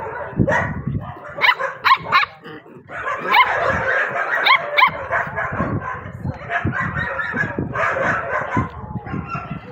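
A group of puppies yipping and barking in play, with many short, sharp calls and scuffling. There is a brief lull about two and a half seconds in.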